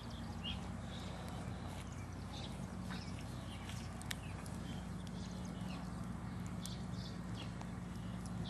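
Faint outdoor ambience: the steady low hum of a lawn mower running at a distance, with occasional small pops from the wood fire under a cast-iron Dutch oven and a few short bird chirps.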